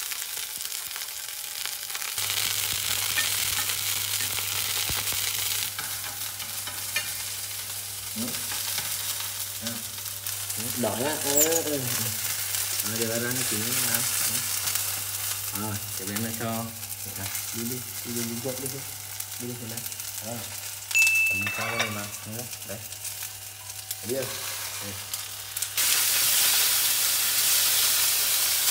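Small onions sizzling and frying in a pan, stirred now and then, with a few short pitched voice sounds in the middle and a brief high beep. About 26 s in the sizzle turns suddenly louder as clam meat is tipped into the hot pan.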